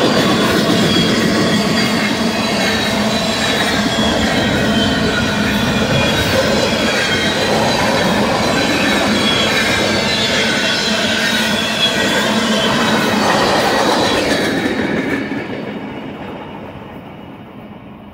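Freight train tank cars rolling past close by: steel wheels on rail, with thin high squealing from the wheels. About fifteen seconds in, the sound fades steadily away as the end of the train passes.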